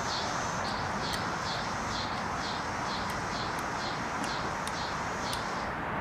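A high, regular chirping, about two chirps a second, over a steady hiss, stopping shortly before the end. A few faint sharp clicks, small parts being handled, sit on top.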